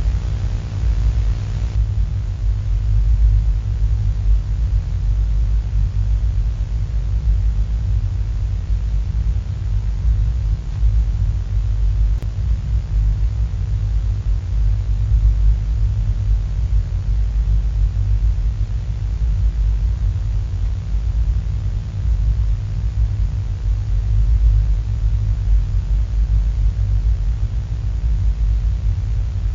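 Steady low rumbling drone with a hiss of static over it and faint steady hum tones, running on without change; the hiss thins slightly about two seconds in.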